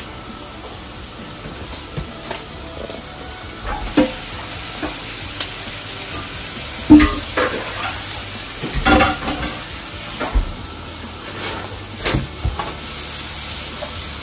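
Red onion and garlic sizzling in hot oil in a nonstick frying pan, with a steady hiss. Every few seconds comes a sharp knock or scrape of the pan being stirred and tossed.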